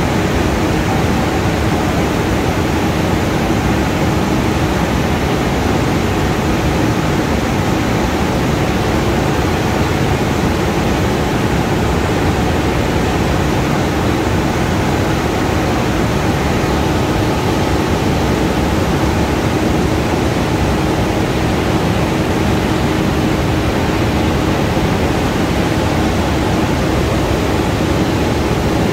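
Ore-grinding mills running: a loud, steady noise with a faint steady hum in it.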